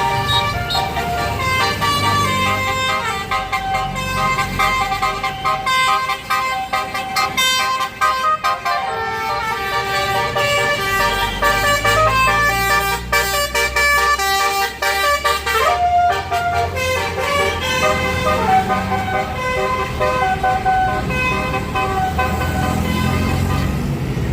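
Tour bus's basuri electric air horn playing a telolet melody: several horn notes stepping up and down in a tune, over the low rumble of the bus.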